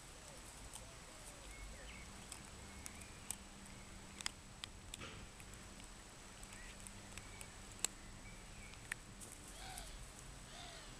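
Papillon dog gnawing a bone, with sharp crunches and clicks every second or so, over faint birds chirping in the background.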